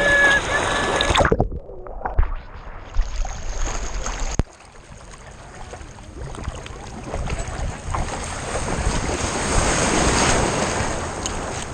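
Ocean water and surf noise on a GoPro Hero 5 strapped to a dog's back. About a second in the sound turns sharply muffled, and from about four and a half seconds the water noise slowly builds again, loudest near the end.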